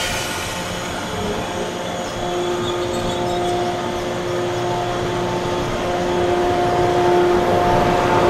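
JR Kyushu 415 series eight-car electric train moving slowly beside the platform: a steady rumble with an electrical hum of several steady tones that comes in a couple of seconds in and grows louder near the end.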